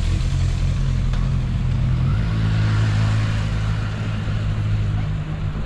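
Motorcycles riding past close by at low speed on cobblestones, engines running with a steady low note that steps higher about two seconds in.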